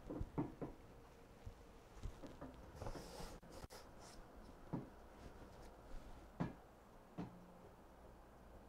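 Faint knocks and scrapes of a stretched canvas being handled and set down on cardboard, with a brief hissing scrape about three seconds in. The sharpest knocks come just after the start and about six and a half seconds in.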